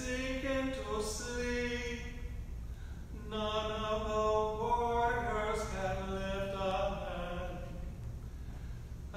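Unaccompanied plainsong chant of a psalm: sustained sung notes stepping from one pitch to the next in two long phrases, with a short break about three seconds in.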